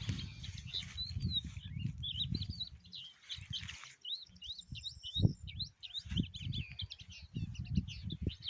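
Many small birds chirping and twittering, a dense chorus of quick calls that thickens about halfway in, over irregular low rumbling.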